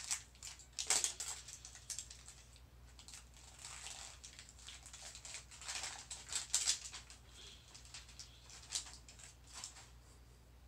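Plastic toy packaging crinkling and rustling in short, irregular bursts as it is handled and unwrapped.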